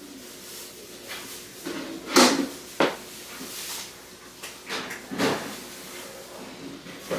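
A few short scrapes and knocks, the loudest about two seconds in, followed by a sharp click just before three seconds and more knocks around five seconds in.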